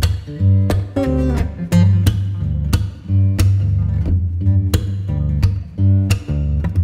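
Background music: a song led by strummed acoustic guitar over a steady bass line.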